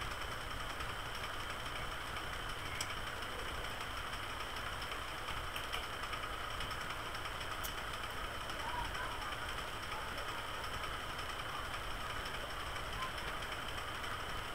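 Steady hum and hiss of background noise, with a few faint clicks.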